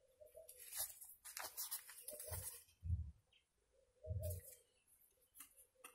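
Serrated knife cutting and scraping butter from a paper-wrapped block onto flatbread, with the wrapper crinkling, in the first couple of seconds. Three short low hums come about two, three and four seconds in.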